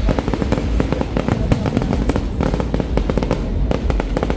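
Fireworks display going off: rapid crackling cracks, many a second, over a continuous low rumble of booms.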